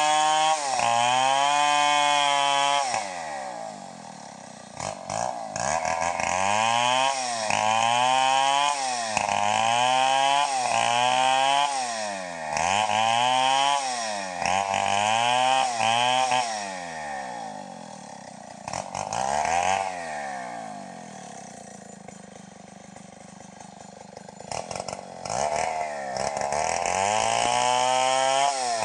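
Stihl 070 two-stroke chainsaw ripping a teak log lengthwise, its engine speed dropping and rising again about once a second as it cuts. Around the middle it runs lower and quieter for several seconds, with one brief rev, then goes back to full revs near the end.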